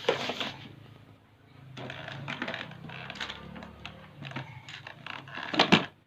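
Irregular clattering and clicking of small hard objects knocking together, with a louder burst of clatter near the end.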